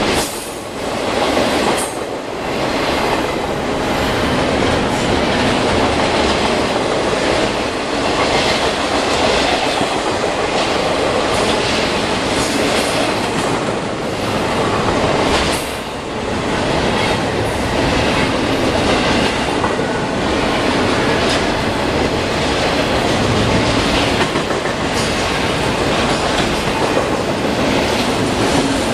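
Double-stack container freight train passing close, its steel wheels rumbling steadily over the rails with scattered clacks as the well cars roll by.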